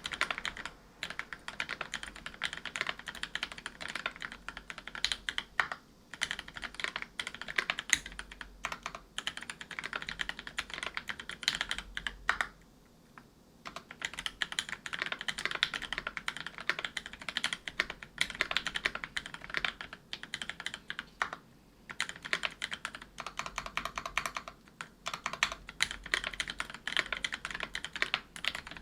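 Typing on a Whale 75 mechanical keyboard with brass plate, GMK keycaps and Gateron Silver Snow 65 g tactile switches lubed with Krytox 205g0: a steady run of quick keystrokes. It stops for about a second near the middle and briefly a few other times.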